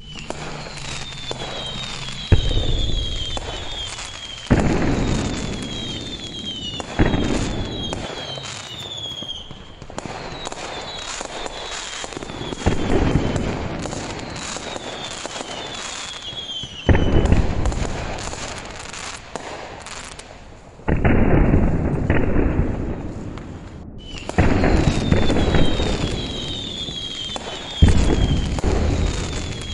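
Fireworks going off one after another, about eight times, each a sudden loud bang followed by a couple of seconds of crackling that dies away. Short high falling whistles recur throughout.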